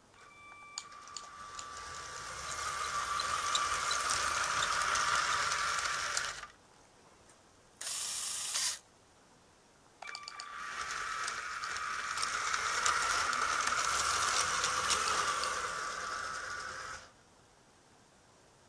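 Lego monorail train's small electric motor whining and its drive gear clattering along the toothed track, in two runs that each build up and then cut off suddenly. Between the runs, a brief hiss-like burst of about a second.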